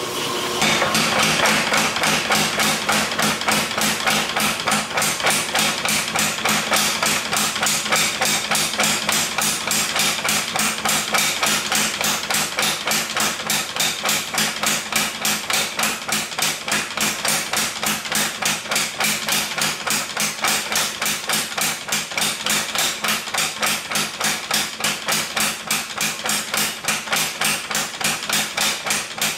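Rapid, evenly spaced hammer blows on steel, about four a second, as the bearded axe head is forged, over a steady low hum.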